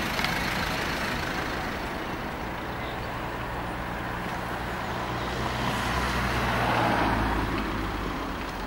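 Road traffic: a motor vehicle's engine running with a steady low hum over a haze of traffic noise, swelling louder as a vehicle passes about six to seven seconds in.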